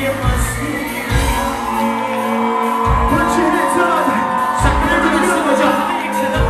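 Live pop band playing with drums and keyboards under singing, with low heavy thumps every second or two and some whoops from the crowd.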